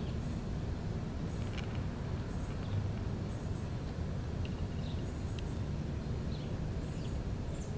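Outdoor ambience: a steady low rumble with short, high bird chirps scattered through it every second or so.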